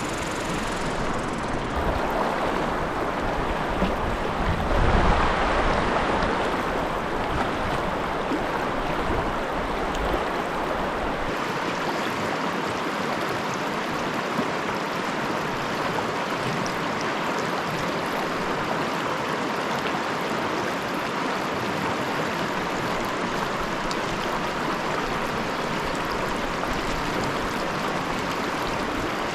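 Small mountain creek flowing, a steady rush of water. A low rumble sits under it for roughly the first ten seconds, swelling about five seconds in.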